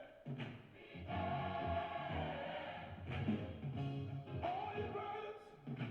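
Gospel music: a choir singing held notes over a band with a steady beat.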